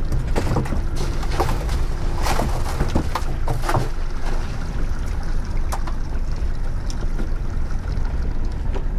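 A 115-hp Yamaha outboard running at trolling speed, heard with wind and water noise as a steady low rumble. Over it come a series of sharp knocks and clatter, mostly in the first few seconds, then a few more around the middle.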